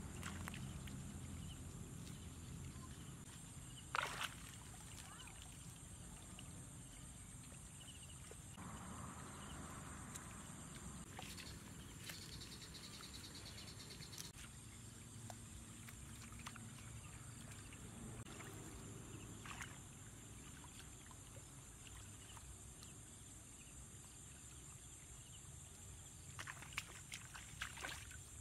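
Faint sloshing of shallow muddy water and rustling of grass as a woven bamboo fish trap is handled and packed with leaves, over a steady high hiss. There is a sharp knock about four seconds in and a few clicks near the end.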